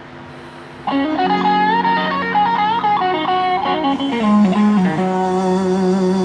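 Instrumental outro of a song: after a faint hum, a guitar melody comes in about a second in and plays a winding phrase over long held low notes.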